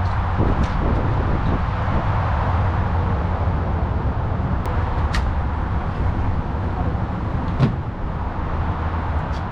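Steady vehicle engine and road noise, a low hum, with a couple of sharp clicks partway through.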